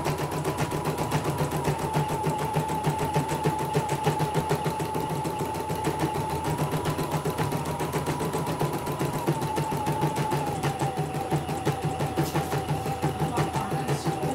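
CNY portable computerised embroidery machine stitching: rapid, even needle strokes over a steady motor whine that steps down slightly in pitch a couple of times.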